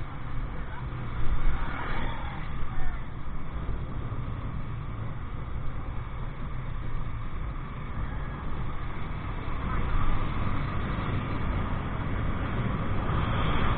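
Motorcycle engine running while riding, with steady wind and road rumble on the microphone. Two brief louder thumps come in the first three seconds.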